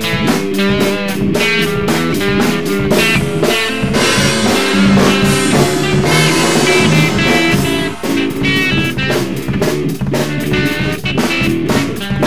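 Instrumental blues jam, multi-tracked with overdubs: guitar playing over a drum kit that keeps a steady beat.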